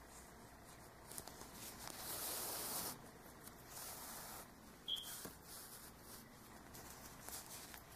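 Soft rustling and rubbing of hands handling a crocheted yarn hat while stitching black thread through it, with a longer hiss about two seconds in and a small sharp click about five seconds in.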